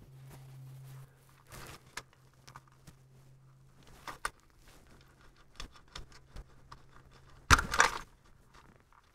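Small metallic clicks and scrapes of a screwdriver working a hose clamp screw, and of a fuel line being worked off a tractor's fuel tank outlet, with a louder rustling scrape near the end.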